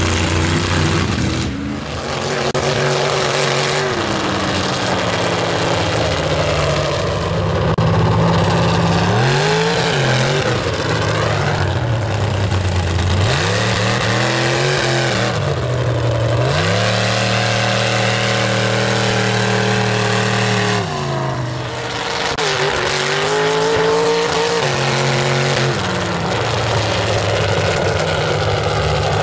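Lifted mud-bog truck engine revving hard as the truck churns through a mud pit. The pitch rises and falls several times, is held high for a few seconds midway, then dips and climbs again near the end.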